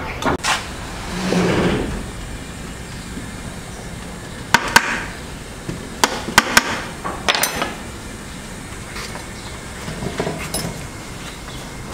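A metal spoon clinking and scraping against an aluminium pot of cooked rice, with a short run of sharp knocks about halfway through.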